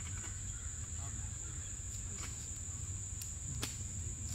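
A steady high-pitched insect drone, with a low rumble underneath and a few faint clicks, the sharpest about three and a half seconds in.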